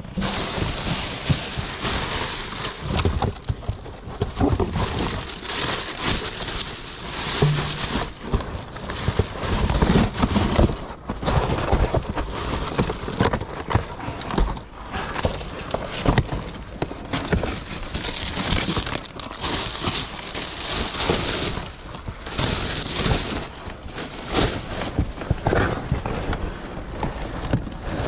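Cardboard boxes, paper and plastic bags rustling, crinkling and knocking against each other as a gloved hand rummages through them, in a continuous irregular clatter.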